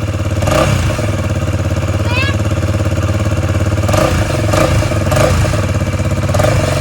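Motorcycle engine running on its stock exhaust, idling steadily with a few quick throttle blips.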